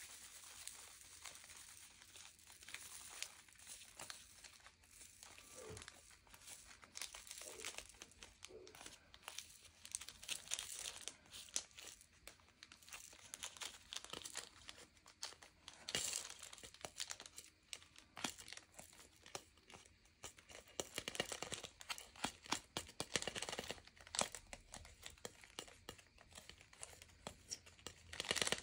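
Small plastic bag crinkling while resin diamond-painting drills are tipped into it from a plastic tray, with many faint, irregular small clicks and rustles.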